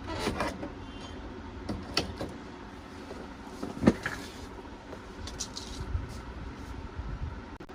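Light clicks and knocks of computer hardware being handled on a bench, the sharpest a little under four seconds in, over a steady low hum.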